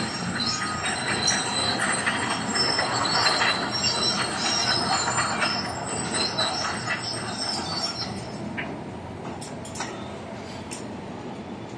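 Steel wheels of a gantry crane squealing and grinding on steel rails as it travels, with several high squeals over a steady metallic rumble; the squealing fades after about seven seconds.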